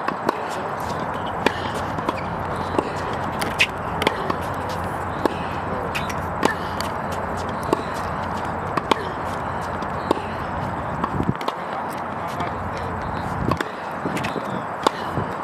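Tennis ball struck back and forth in a hard-court rally: sharp racket hits and ball bounces about every second, over steady background noise.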